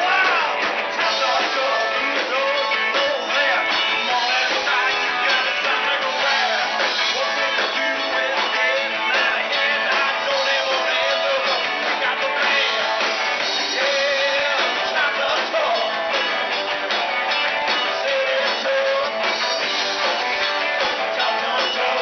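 Live rock band playing loud and steady: electric guitars, bass and drum kit with a singer. The recording is thin, with little bass and the top cut off, as from a small camera's microphone.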